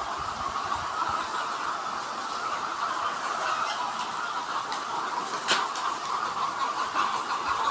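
A large flock of chickens in a poultry house, a dense, steady chorus of many overlapping cheeps and clucks, with one sharp click about five and a half seconds in.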